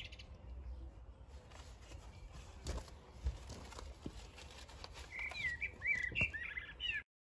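A songbird singing quick, high chirping phrases from about five seconds in, over faint outdoor background with a few soft knocks. The sound cuts off abruptly just before the end.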